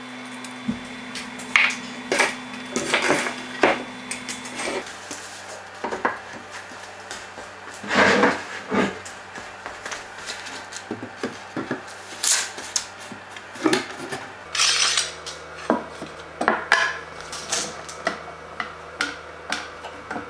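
Irregular knocks, taps and clatter of wooden furniture parts being handled and fitted together. A steel pipe clamp clanks as it is set across the top.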